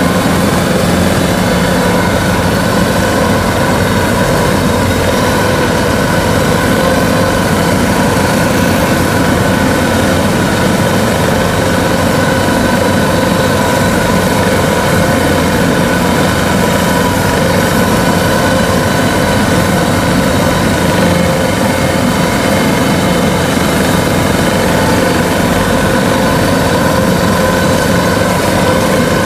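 Kubota DC-93 combine harvester's diesel engine running steadily and loud as the machine drives along a road on its rubber tracks, the pitch unchanging.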